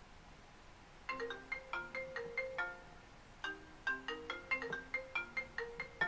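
Mobile phone ringtone playing a quick melody of short, bright struck notes, in two phrases with a brief break between them, starting about a second in.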